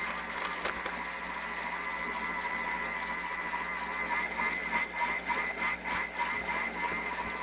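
Thermomix TM31 motor running steadily at speed 4 with the butterfly whisk, a steady whine as it whirls the vinegar and mustard dressing. A few light clicks come in the second half.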